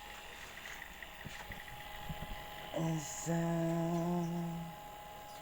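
A person humming at a steady pitch with closed lips: a short hum, then a longer held one about a second long.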